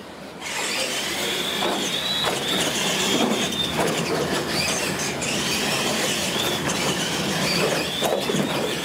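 Two radio-controlled monster trucks racing off the line, their electric motors and gear drives whining high and loud. The sound starts suddenly about half a second in, and the whine rises and falls as the trucks speed up and slow.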